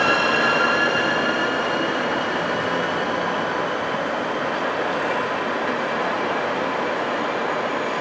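A train running through the station: a steady rush of rolling noise, with a high whine of several tones that fades out over the first two seconds or so.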